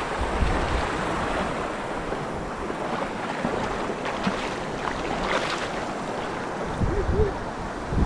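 A shallow, stony mountain stream rushing steadily, with a hooked trout splashing at the surface now and then as it is played in the shallows.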